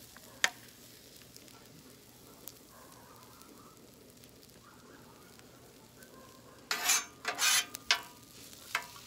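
Faint sizzling of fried rice with peas and carrots frying on a flat-top griddle, with a sharp tap about half a second in. Near the end a metal spatula scrapes across the griddle in a few loud strokes, followed by several light taps.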